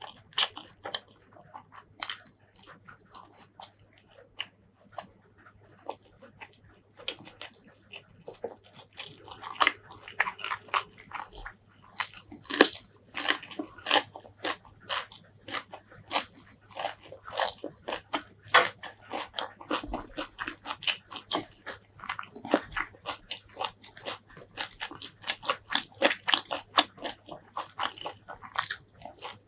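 Close-miked eating: a person biting and chewing, with rapid crunches from raw green vegetables and wet mouth sounds. The crunching is sparse for the first several seconds and dense from about nine seconds in, over a faint steady low hum.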